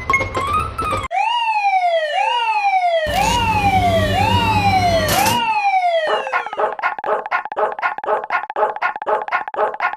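Level-crossing warning sound effects: a falling, siren-like wail repeated about once a second, joined midway for a couple of seconds by a low buzzing drone, then a steady ringing alarm tone pulsing about four times a second. Piano music plays briefly at the start.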